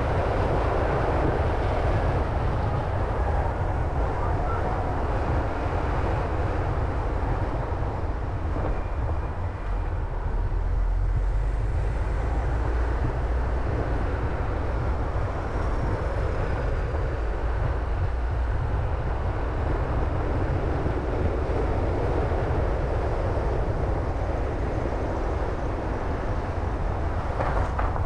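Car driving along a road: steady tyre and road noise over a low engine rumble.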